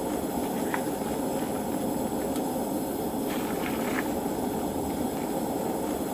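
Gas camp-stove burner running with a steady rushing hiss, a few faint ticks over it.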